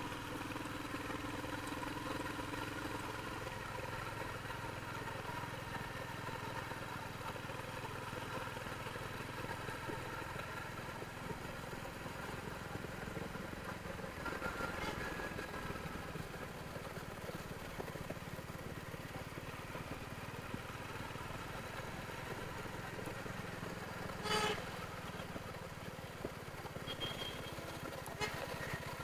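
Royal Enfield Hunter 350's single-cylinder engine running steadily through its stock exhaust. A short horn-like beep sounds once about 24 seconds in.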